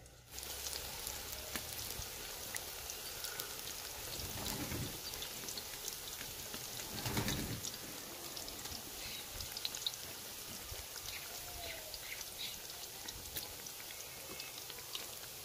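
Gram-flour cauliflower pakora batter sizzling and crackling in hot oil in an aluminium pot as handfuls are dropped in, with a louder surge about halfway through as fresh batter hits the oil.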